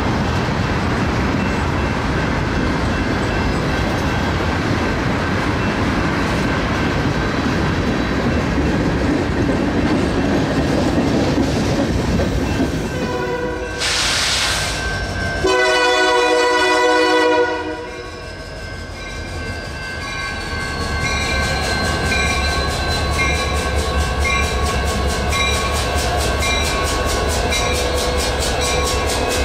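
Diesel freight train running with a steady rumble. About halfway through, the locomotive's air horn sounds one chord blast of about two seconds. After it, the engine rumble goes on with a regular beat and a faint ringing that repeats.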